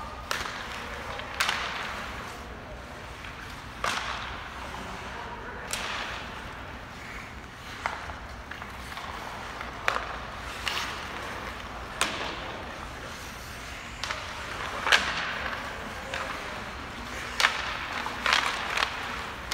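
Hockey game play: sharp cracks of sticks on the puck and the puck against the boards, about a dozen at irregular intervals, over a steady rink hiss.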